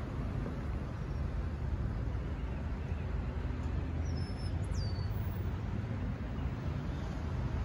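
Freight train rolling past: a steady low rumble and rushing noise with no clear rhythm. A bird chirps briefly about halfway through.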